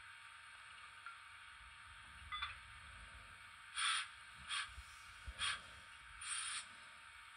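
Steam-locomotive sound from an ESU V5 sound decoder through the model's small Leo speaker: a faint steady hiss, then four short hissing bursts of steam between the middle and the end, the last one a little longer.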